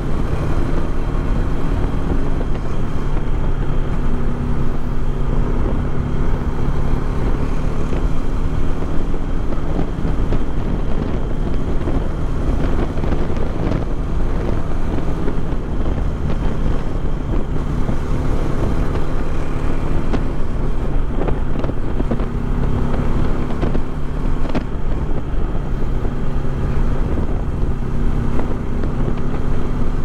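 Bajaj Dominar 400's single-cylinder engine running steadily while the motorcycle is ridden, with wind rushing over the microphone.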